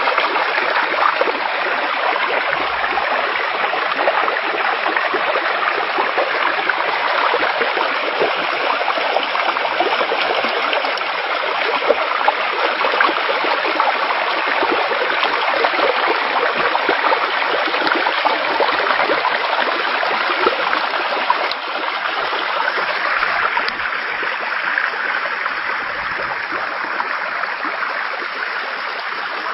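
Floodwater rushing through a washed-out railway embankment: a steady, loud rush of churning water that eases slightly near the end.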